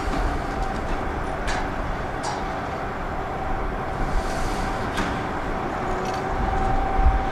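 Heavy excavator's diesel engine running steadily with a low rumble and a thin steady whine, with a few sharp clicks.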